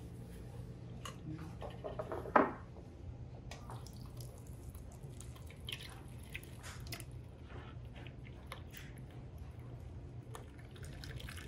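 Beaten egg mixture trickling and dripping through a fine-mesh sieve into a plastic measuring jug, faint. A single knock sounds about two seconds in.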